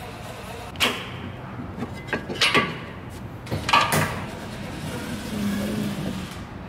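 Metal clunks and scrapes as a worn front control arm is handled against the suspension: a knock about a second in, a quick cluster of knocks near the middle and a louder knock shortly after, over steady workshop background.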